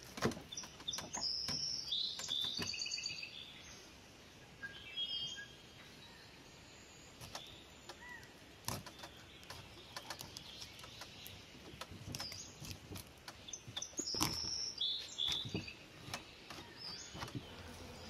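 Small birds chirping in short bursts, over a string of sharp clicks and scrapes from a knife working along a whole sturgeon on a wooden table.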